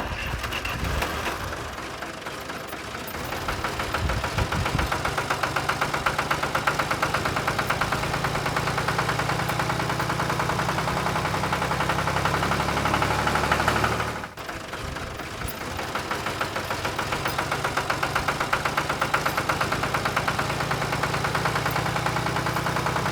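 A small engine running steadily with a fast, even beat. It briefly drops away about fourteen seconds in, then runs on the same way.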